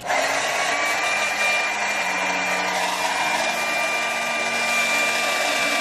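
Handheld hair dryer switched on right at the start and blowing steadily: a loud rush of air with a steady motor whine.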